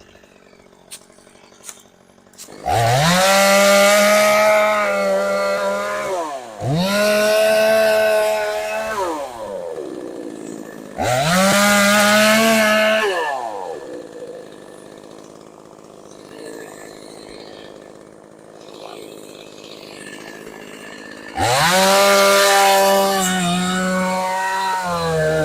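Gas chainsaw revved hard four times, each burst climbing quickly to full speed and then dropping back, with the saw idling in between and a longer idle before the last burst.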